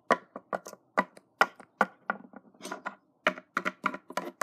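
Plastic Littlest Pet Shop figurines tapping and hopping on a wooden tabletop: a quick, irregular run of sharp clicks, about four or five a second.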